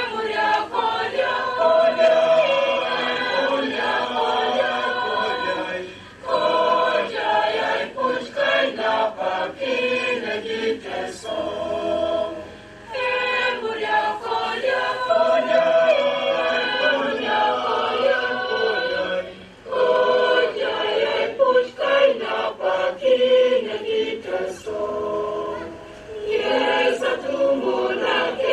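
A crowd of men and women singing together in long sung phrases, each broken by a short breath about every six or seven seconds.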